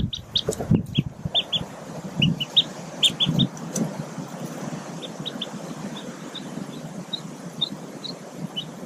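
Newly hatched mallard ducklings peeping at the nest: short high peeps, rapid in the first few seconds, then sparser, about one every half second. Low rustling in the nest litter in the first few seconds.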